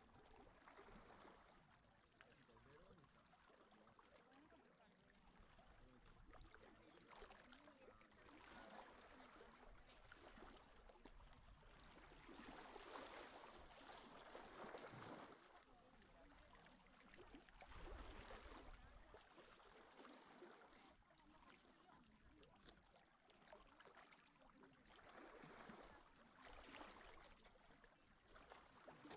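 Faint small sea waves lapping and washing on the shore, the wash swelling and fading every few seconds.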